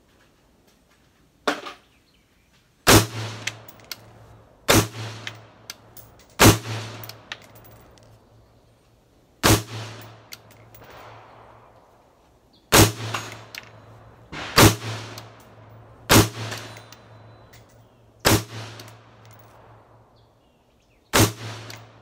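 Handgun fired in single, deliberate shots, about ten spaced one to three seconds apart, each sharp crack followed by a ringing tail; the first is fainter than the rest.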